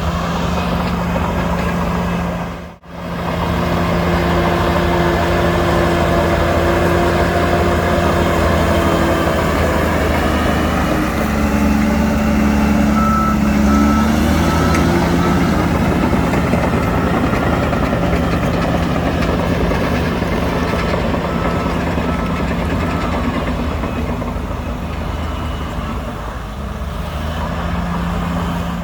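Heavy diesel earthmoving machinery running steadily under load, its engine pitch shifting around the middle, with a reversing alarm beeping in a quick series about halfway through. The sound cuts out briefly about three seconds in.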